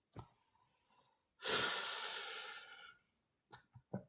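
A man's long, exasperated sigh, a loud breathy exhale close to the microphone that fades over about a second and a half. It is followed near the end by a few short breathy chuckles.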